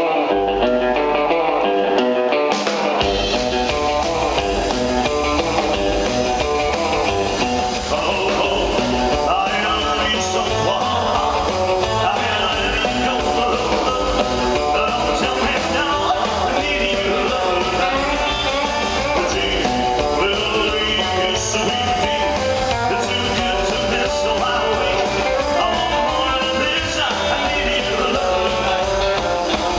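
Live rock and roll band playing: electric guitar, upright double bass and drums, with a man singing into the microphone. The bass and the steady drum beat come in about two and a half seconds in.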